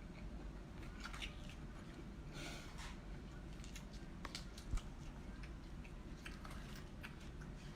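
Faint eating sounds of someone working through cooked seafood: scattered small clicks and cracks of shells being broken and chewed, with one sharp thump a little past halfway.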